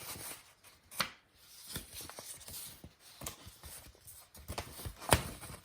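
Handling of paper leaflets and packaging: light rustling with scattered taps, and two sharper clicks, one about a second in and one near the end.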